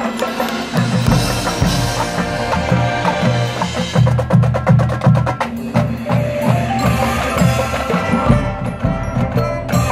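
Marching band playing live: brass over drums and front-ensemble mallet percussion, with pulsing low brass notes. A fast run of sharp percussion clicks comes about four seconds in.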